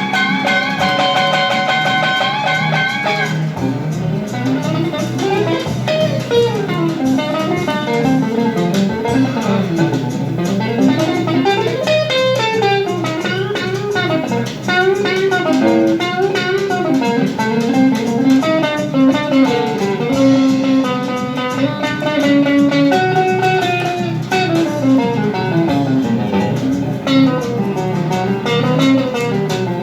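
Blues-rock band music, led by electric guitar over bass guitar, with bending, gliding melodic lines.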